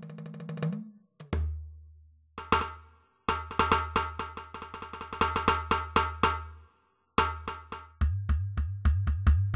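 Yamaha DD-65 digital drum kit sounding its preset drum and percussion voices: runs of quick sharp hits over deep held bass tones, stopping and starting three times.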